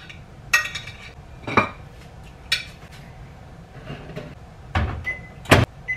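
Dishes and utensils clinking and knocking while food is served onto a plate: about five sharp clinks spread out, the loudest near the end. A steady high tone follows near the end, over a low background hum.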